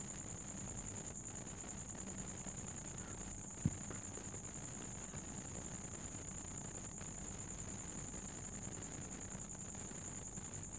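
A steady high-pitched whine over a faint low hum, with a single short knock about three and a half seconds in as the plastic mid-frame of a Samsung Galaxy A20 is handled and fitted over the board and battery.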